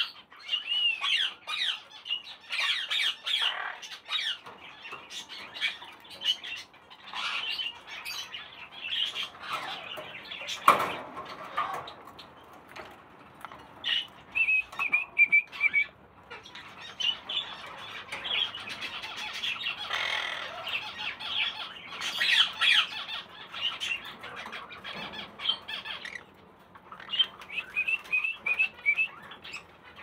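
Caged parrots, a green-cheeked conure among them, squawking and chirping in repeated short calls, with two quick runs of chirps. There is one sharp clack about eleven seconds in.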